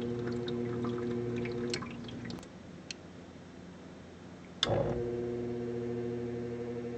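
Maytag WU882 dishwasher's pump motor humming on the drain cycle without draining the tub. The hum stops about two seconds in and cuts back in with a click near five seconds. The owner suspects the pump is binding, from worn bearings or dried-up seals.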